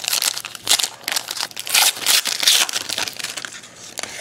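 Foil wrapper of a 2011 Panini Prestige football card pack crinkling in the hands as the pack is opened and the cards are pulled out, in dense irregular crackles that die down near the end.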